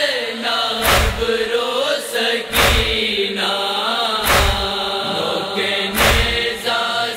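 Voices chanting a wordless, drawn-out noha refrain, with a deep, regular thump of matam (rhythmic chest-beating) about every second and three-quarters keeping the beat.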